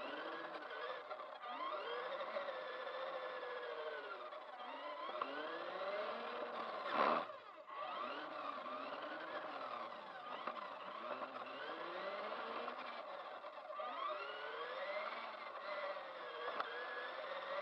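Whine of a Kyosho Mini-Z Overland H2 Hummer RC car's small electric motor and gears, rising and falling in pitch over and over as the car speeds up and slows down. A brief loud knock about seven seconds in.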